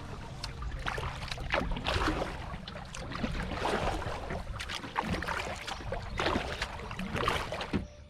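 Kayak paddle strokes dipping and splashing in the water, with water dripping and trickling off the blades. The sound cuts off suddenly just before the end.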